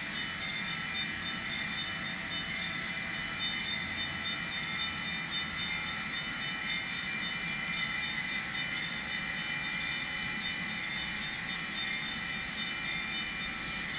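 Model train of loaded coal hopper cars running along layout track: a steady whir with several steady high tones and faint regular light ticks.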